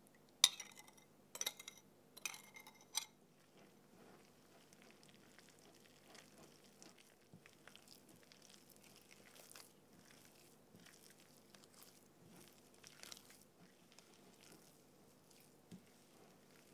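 A spoon clinking against glass four times as the milk mixture is scraped out of a glass cup into a glass bowl, then faint soft squishing and crumbling of buttery dough being kneaded by gloved hands.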